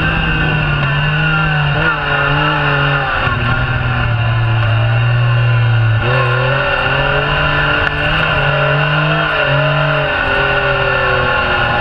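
Yamaha YXZ1000R SS SE side-by-side's three-cylinder engine running hard at high revs while driving on sand dunes. Its pitch steps up and down every second or two with the throttle, and holds lower and steadier for a few seconds in the middle, with a constant rush of wind and sand under it.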